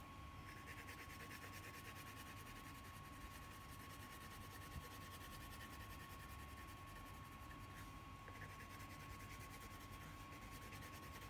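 Faint scratching of a purple crayon scribbled quickly back and forth on paper over a clipboard, colouring in a drawing, with a short pause about eight seconds in. A thin steady high hum runs underneath.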